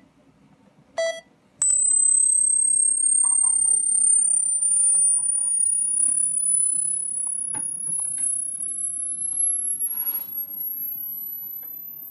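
A short beep, then a single pure test tone from a smartphone loudspeaker that glides slowly upward from very high pitch toward the top of hearing, fading as it rises: a treble sweep testing the speaker's upper frequency range.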